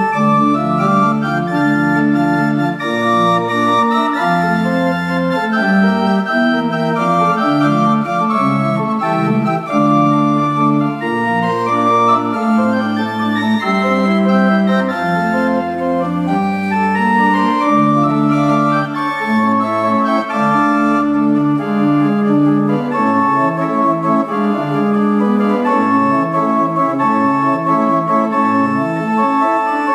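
An old English pipe organ, with parts possibly as early as 1780, playing a piece in held chords over a moving bass line.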